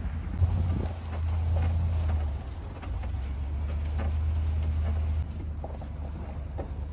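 Low rumble of a 4x4 vehicle driving over a rough, rocky dirt road, swelling about a second in and easing off twice, with scattered knocks and rattles as it jolts over bumps and dips.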